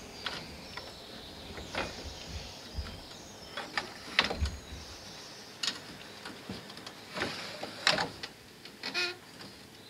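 Plastic lid of a large wheeled waste container knocking and scraping as it is pushed open from inside, with irregular bumps and rustling as someone moves and stands up inside the bin. The louder knocks come about four seconds in and again near eight seconds.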